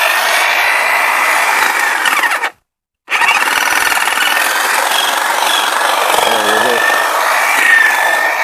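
Electric hedge trimmer running steadily with its blades pushed down into a ground cover of English ivy, cutting the creeping vines; a steady high whine. The sound cuts out abruptly for about half a second a little after two seconds in, then carries on.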